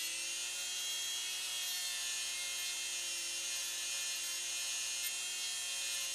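Small handheld rotary grinder running steadily with a high whine, grinding a flaw out of a cast clear-resin figure.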